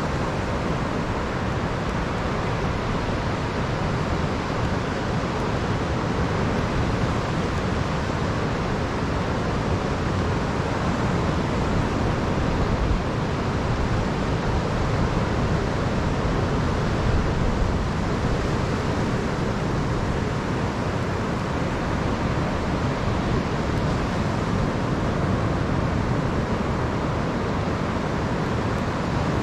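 Ocean surf breaking on the shore with wind: a steady, unbroken rushing noise.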